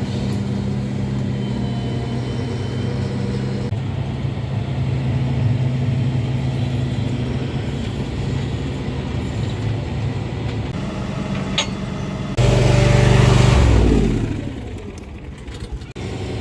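Tractor engine running steadily. About twelve seconds in, a louder engine sound starts abruptly and then falls in pitch as it winds down.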